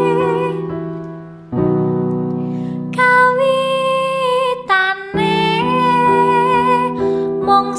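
Background music: a woman singing long held notes with vibrato over sustained keyboard chords. The music drops away briefly about a second and a half in, then comes back.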